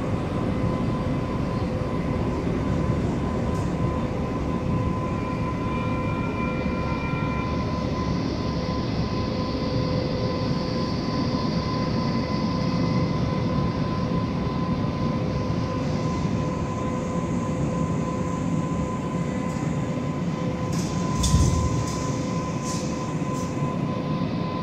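Sacramento RT light rail train heard from inside the car while running: a steady rumble of wheels on rail with a constant electric hum. A brief higher whine comes in around six seconds, and about twenty-one seconds in a thump and a cluster of sharp clicks stand out.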